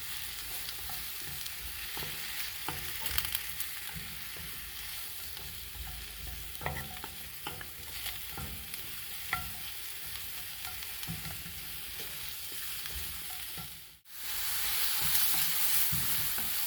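Sliced mushrooms and onions sizzling as they sauté in oil in a pan, with scattered clicks and scrapes of a utensil stirring them. The sound drops out briefly about fourteen seconds in and comes back with louder sizzling.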